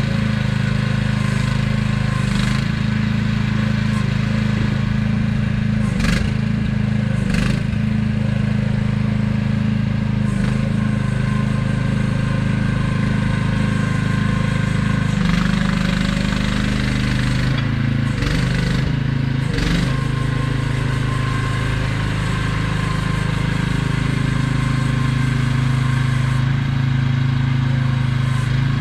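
AGT QH12R mini excavator running, its small engine holding a steady note while the machine works. About halfway through the engine note wavers for a few seconds, and a handful of short sharp clanks come through over the engine.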